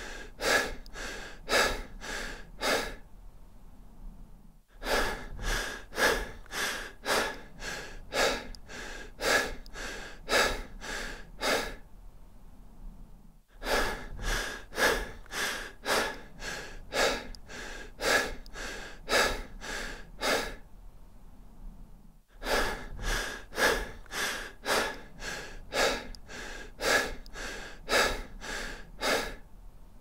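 A person breathing deep and fast, about two breaths a second, in runs of about seven seconds broken by short pauses of a couple of seconds.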